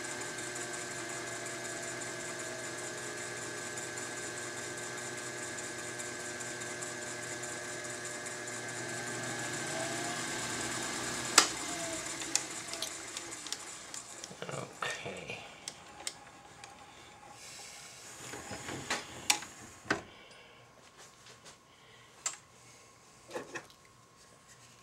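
Metal lathe motor and spinning chuck running with a steady hum, switched off with a sharp click about 11 seconds in and then coasting down. Scattered clicks and knocks follow as the machine stops.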